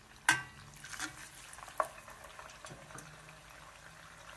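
Potato-starch-coated tofu cubes deep-frying in a small saucepan of hot oil, a steady bubbling sizzle. A few sharp clinks of a metal skimmer come over it, the loudest and ringing about a third of a second in.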